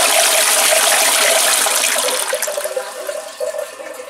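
Toilet flushing: a loud rush of water into the bowl that fades over the last two seconds as the bowl drains.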